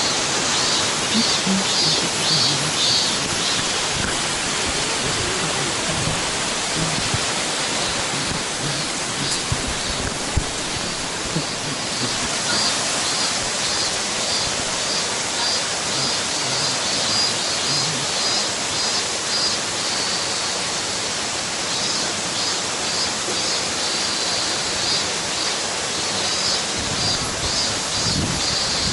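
A waterfall pours in a steady, even rush of falling water. Short runs of rapid high chirps repeat over it throughout.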